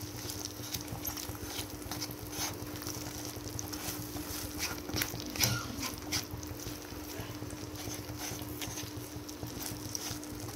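A slotted spatula stirring thick mushroom gravy in a nonstick kadai: scattered scrapes and taps on the pan over a faint sizzle, with a steady low hum underneath. The jaggery just added is being stirred in to dissolve.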